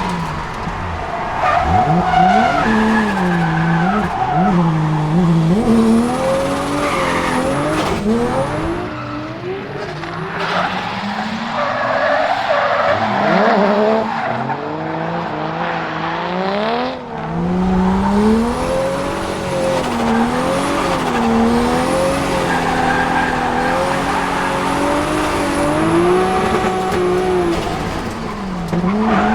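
Turbocharged RB25DET 2.5-litre straight-six in a Nissan 200SX S14, heard from inside the car, revving up and down over and over as the car drifts, with tyres squealing.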